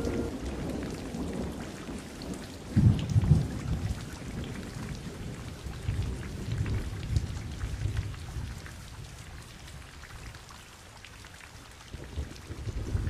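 Steady rain falling with rolls of thunder. A loud thunder rumble comes about three seconds in and further rumbles follow. It dies down for a while before swelling again near the end.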